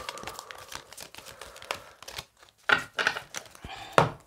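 Deck of oracle cards being shuffled by hand: a rapid run of small papery clicks, then a few louder taps, with a card set down on a wooden table about four seconds in.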